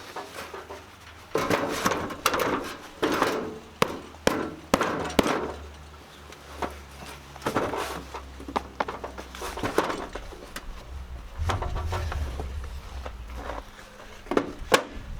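Irregular knocks, thuds and scraping as a petrobond sand mould is broken open and the freshly cast aluminium anchor is dug out of the sand.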